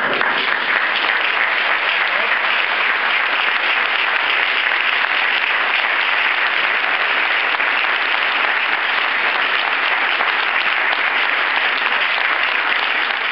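Large audience applauding, dense and steady clapping from many hands.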